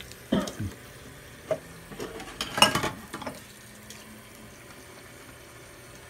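Dishes being hand-washed in a stainless steel kitchen sink: water from the tap, splashing, and a few sudden clatters, the loudest about two and a half seconds in, settling into a faint steady hiss of running water.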